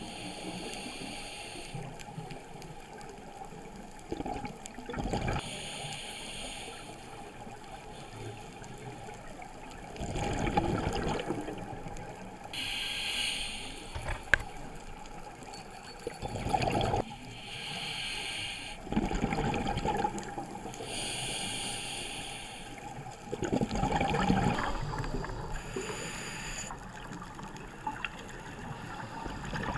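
Underwater sound of scuba divers breathing through their regulators: the rush of exhaled bubbles comes in bursts every few seconds over a steady underwater hiss. One sharp click about halfway through.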